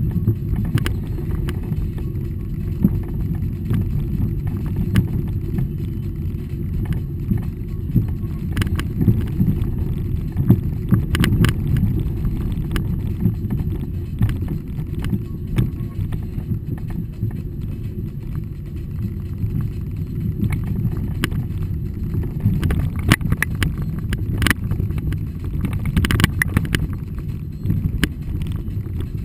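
A car driving slowly along a rough dirt track, heard from inside the cabin: a steady low rumble of the engine and tyres, with scattered clicks and knocks, more of them in the last third.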